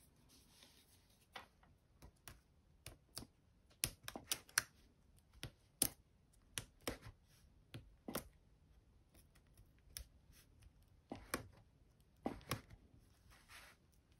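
Irregular light clicks and taps of a pointed craft tool and fingertips on card stock, picking and peeling the backing off foam adhesive dots stuck to the back of a paper cutout.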